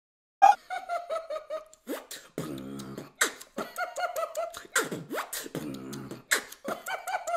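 Beatboxing: vocal percussion that starts abruptly about half a second in, with a fast rhythm of sharp snare-like hits and short falling pitched chirps. A low buzzing bass note is held twice, once near the middle and once a little later.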